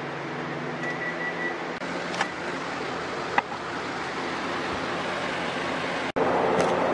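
Hamilton Beach microwave oven finishing its heating cycle: its running hum stops about a second in and it gives a short high-pitched beep. Two sharp clicks follow as the door is opened, over a steady background noise.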